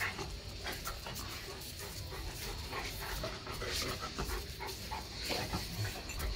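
Rottweiler panting during rough play, in quick irregular breaths.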